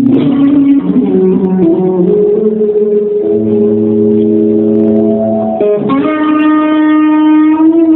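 Solo electric guitar played through a Port City amp and effects pedals: long held notes stepping from pitch to pitch, then a quick slide just before the six-second mark into one long sustained note rich in overtones.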